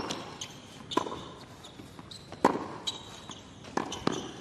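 Tennis ball struck back and forth by racquets in a baseline rally on a hard court: a sharp pop every second or so, with brief high sneaker squeaks between shots.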